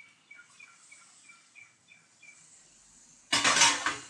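A bird chirps faintly in the background, short high notes repeated about three times a second. Near the end comes a brief, loud rush of noise from the frying pan as steamed cauliflower goes into the hot onion-tomato masala.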